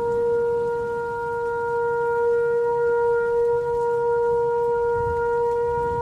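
Shofar sounding one long, steady held note over a low rumble.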